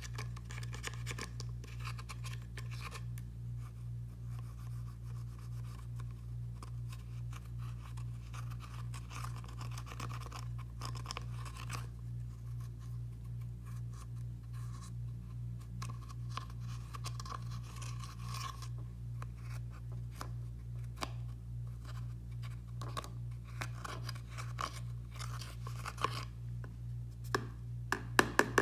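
A small plastic spatula scraping and crumbling pressed eyeshadow out of palette pans, a dense run of fine scratches, with a few sharper taps near the end, over a steady low hum.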